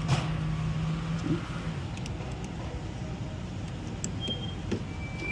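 Steady low rumble like a running vehicle or road traffic, with a steady hum that stops about a second and a half in and a few faint light clicks.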